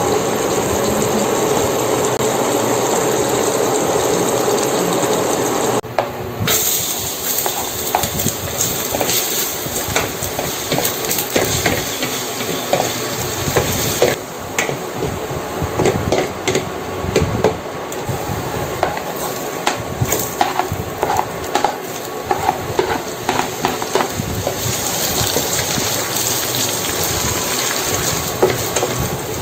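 Garlic, onion, tomato and ginger sizzling in hot oil in a stainless steel pan, with a wooden spatula stirring and scraping, knocking against the pan in many short clicks. The first several seconds are a steadier, denser noise that cuts off sharply.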